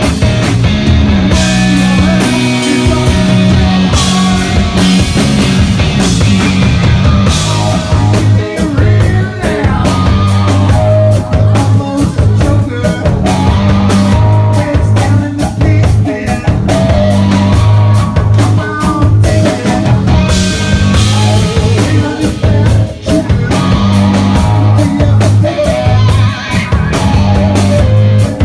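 Live rock band playing loudly, with electric guitar and drum kit.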